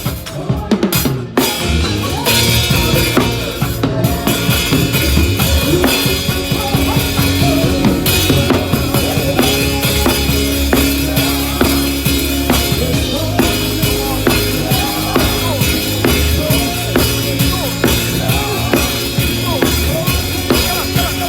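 Drum kit played live with other instruments, kick drum, snare and rimshots over sustained bass notes; the sound fills out about two seconds in.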